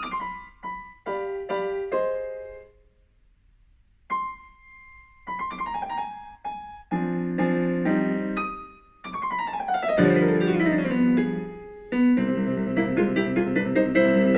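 Background piano music: single notes and chords, with a brief pause early on and a descending run of notes before fuller chords near the end.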